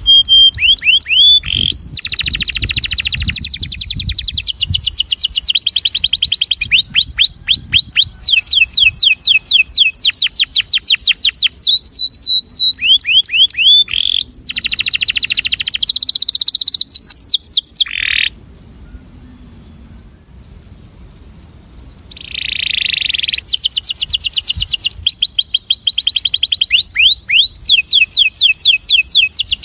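Male canary singing its courtship song: fast trills of repeated downward-sweeping notes, switching from one roll to another at different pitches. The song stops for about four seconds past the middle, then resumes.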